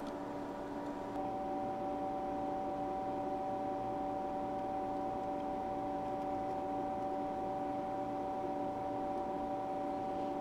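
Steady machine hum made of several constant tones over a faint hiss, with a higher tone joining about a second in and holding steady.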